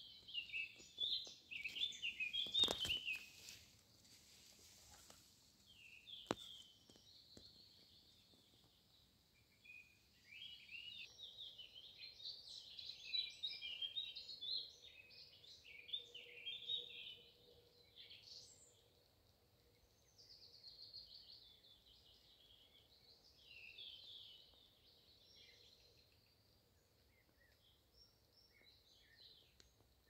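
Small songbirds singing in woodland: short, varied chirping and trilling phrases that come every second or two. A sharp knock a few seconds in and a click a few seconds later.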